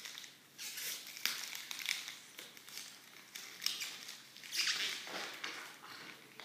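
Brown paper wrapping on a parcel being torn open by hand, in a series of irregular rips and crinkles.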